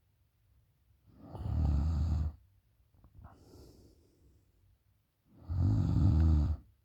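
A woman snoring with her mouth open: two long, loud snores about four seconds apart, with a soft breath between them.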